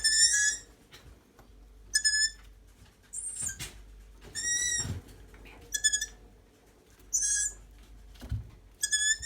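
Young owls giving squeaky begging calls, like a rusty swing: about seven short, high calls, one every second or so, from several birds.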